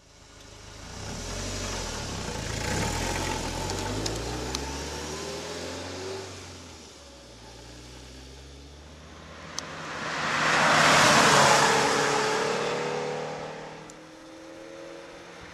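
Lotus Elise S2 sports car driving: its engine is heard revving and easing off over the first few seconds. About ten seconds in the car passes close by, its sound swelling to a peak and then falling away with a drop in pitch.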